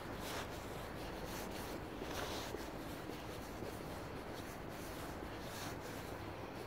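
Soft, irregular scuffs and rubbing from someone walking on asphalt while carrying the recording phone, over a steady low outdoor hum.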